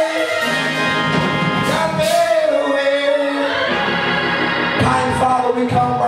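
Gospel church music: a voice holding long sung notes over organ-like keyboard chords and drums.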